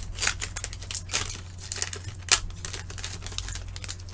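Trading cards and clear plastic card sleeves rustling and crinkling in gloved hands, in a series of short irregular rustles and clicks, over a steady low hum.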